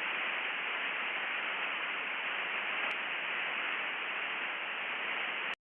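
Steady radio static hiss on an open channel after a transmission ends, cutting off suddenly near the end.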